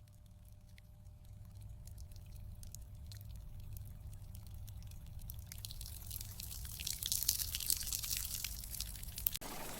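Raindrops striking a tin roof, at first as scattered separate ticks over a low rumble. From about halfway they thicken into a dense, louder crackle.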